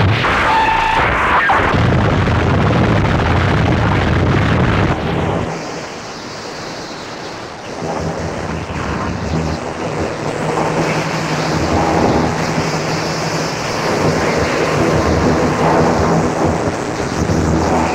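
Harsh noise music: a loud, dense wall of distorted noise. About five seconds in it drops back and the low rumble falls away, then from about eight seconds a steady low buzzing hum comes in under the noise and it builds again.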